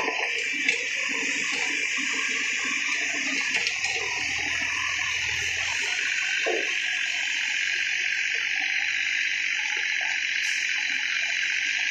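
Mini excavator at work, giving a steady rushing hiss, with a brief thud about six and a half seconds in as the bucket drops its load of debris into a dump truck bed.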